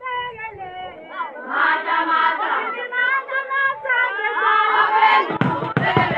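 A group of young Zulu women singing a traditional song together in chorus. About five seconds in, a fast run of sharp rhythmic beats starts under the singing as a dance begins.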